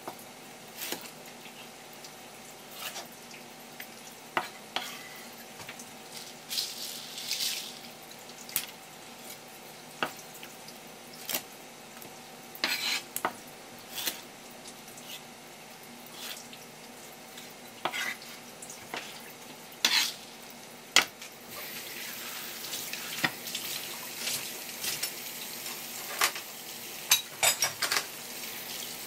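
Kitchen fish-prep sounds: scattered knocks and clicks of a knife and utensils on a cutting board and dishes, with short bursts of running water and a steadier hiss of water in the last several seconds.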